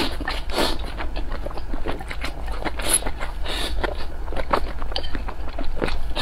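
Close-miked eating of a bowl of rice: wooden chopsticks scraping and tapping against a ceramic bowl as the rice is shovelled into the mouth, with chewing that comes as quick, irregular clicks and crackles. A steady low hum runs underneath.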